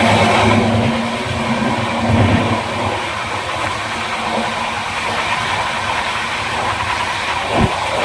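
Steady rumble of a train in motion, with a low, even hum running underneath.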